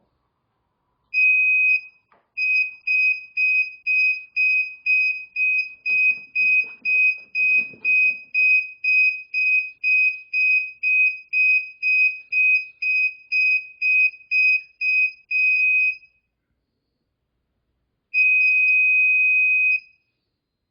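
Hoverboard's built-in buzzer beeping a single high tone, about two beeps a second for some fourteen seconds. After a short pause it gives one long beep of nearly two seconds. These are the board's alarm and reset signal beeps.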